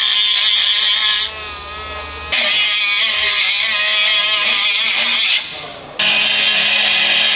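Compact cordless cut-off tool with a small abrasive wheel cutting through a truck's metal crossmember. Three long, loud passes, with the cut easing off twice in between.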